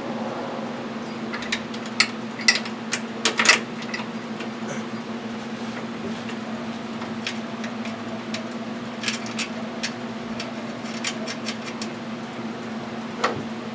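Scattered sharp metal clicks and knocks as a mower's PTO clutch and its holding bar are handled and lined up for bolting, a burst of them a few seconds in and another later on, over a steady low hum.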